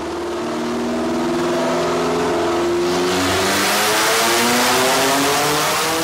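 Car engine accelerating, its pitch rising steadily as it grows louder, with a rushing noise building from about halfway through.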